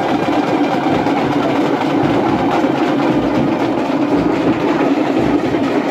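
Loud, fast, unbroken drumming, the rapid beats running on without a pause.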